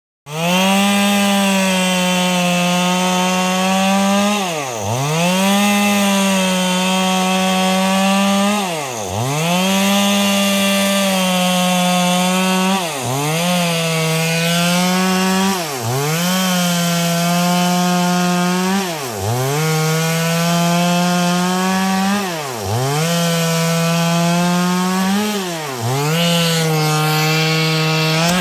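Chainsaw running at high, steady speed while cutting wood. Its pitch drops sharply and recovers about every three to four seconds.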